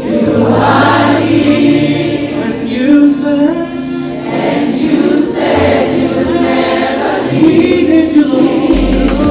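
Gospel choir singing live in a large hall, many voices together in sustained, swelling phrases.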